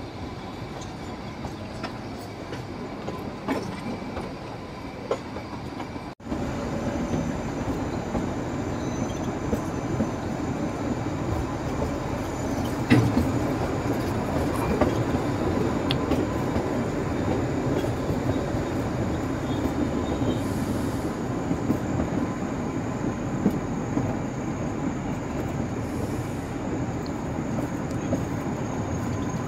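Kalka–Shimla narrow-gauge passenger coaches running along the track: steady wheel-on-rail noise with clicks and a thin wheel squeal as the train takes the curves. It gets louder a few seconds in, and there is a single sharp knock about halfway through.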